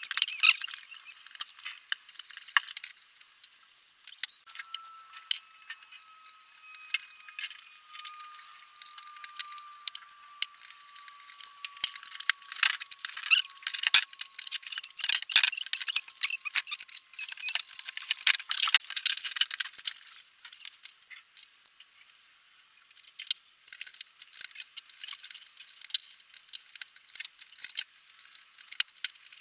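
Small metal parts of a Stanley Bailey No.5 hand plane clicking and clinking as they are handled and screwed back together, with a screwdriver turning the screws. Many quick clicks, busiest about halfway through; the sound is thin, with no low end.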